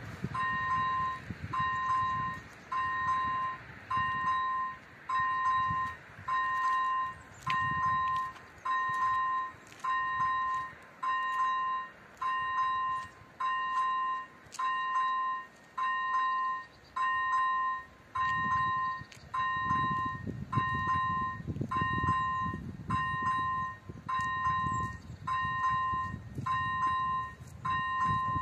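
Electronic warning bell of an AŽD 97 railway level crossing, ringing a steady repeated two-tone ding a little faster than once a second. It warns that a train is approaching while the barriers are down, and it stops near the end.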